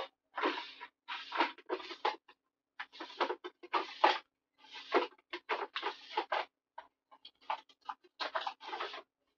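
Paper being handled and shuffled during crafting, rustling in short, irregular bursts.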